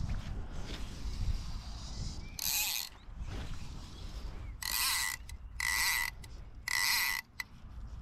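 Fly reel's click-and-pawl ratchet buzzing in four short runs of about half a second each, as line is drawn through it, over a low rumble of wind and water.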